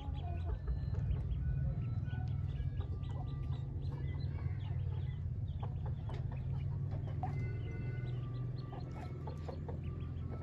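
Newly hatched Pekin ducklings peeping: many short, high cheeps overlapping continuously, over a steady low hum.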